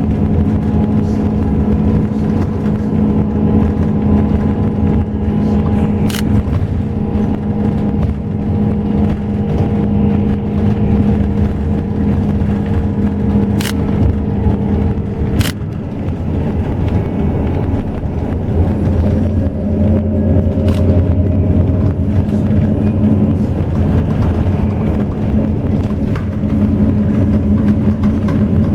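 Bus engine and drivetrain running steadily, heard from inside the cabin as a loud hum with several steady tones, whose pitch changes about halfway through. A few sharp clicks or rattles come through it.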